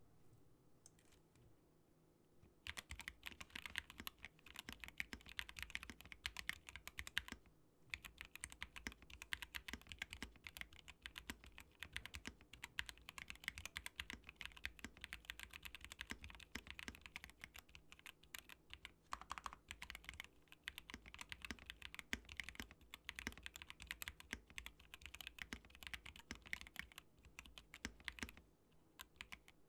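Typing on a mechanical keyboard with Gateron Black Ink V2 linear switches, in a GMMK Pro with a polycarbonate plate and PE foam. A steady stream of fast keystrokes starts about three seconds in, pauses briefly, and stops shortly before the end.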